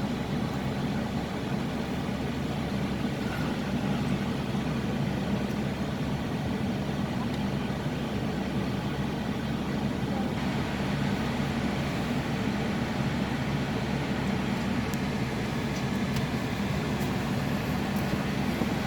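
Steady low engine hum and road traffic noise, without a horn or a distinct vehicle passing by.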